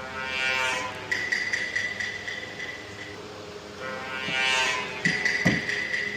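An electronic sound effect played twice. Each time a swelling, pitch-sweeping tone is followed by a steady high ringing tone with a quick run of clicks.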